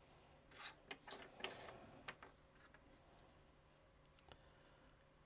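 Near silence with a few faint clicks and scuffs of small plastic action-figure parts being handled, mostly in the first two seconds and once more near the end.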